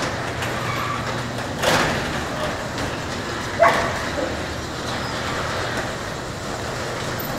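Sectional overhead garage door closing, running steadily down its tracks with a low hum, and two louder sharp knocks about two seconds apart partway through.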